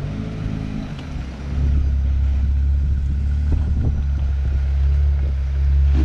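Jeep Wrangler's engine running at low speed as it crawls over boulders on a rock trail, a steady low hum that grows louder about a second and a half in.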